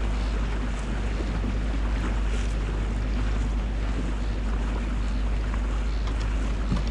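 Motorboat under way: the engine drones steadily under rushing water, with wind buffeting the microphone.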